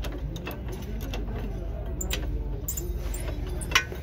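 A wrench clinking against metal suspension bolts and brackets in a car's wheel arch while control arm bushes are refitted: a few scattered metallic clicks, the sharpest near the end.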